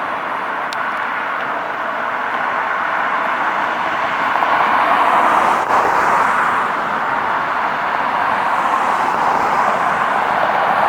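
Road traffic: a steady hum of cars, with vehicles passing and swelling louder about halfway through and again near the end.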